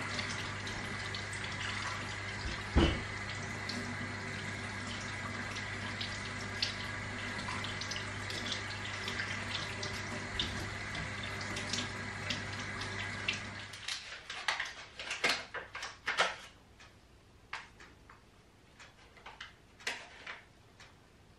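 Kitchen tap running into a stainless-steel sink while a green apple is rinsed under it, with a steady low hum and one thump about three seconds in. The water cuts off abruptly after about fourteen seconds, followed by scattered light clicks and knocks.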